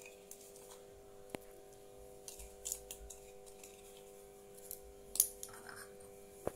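Faint, scattered clicks and crisp snips of small kitchen items being handled, over a steady hum.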